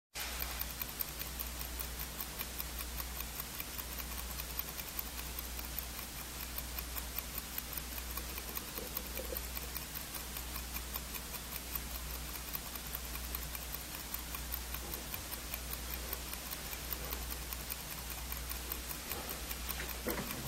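Mechanical watch movement ticking rapidly and evenly, over a low steady hum.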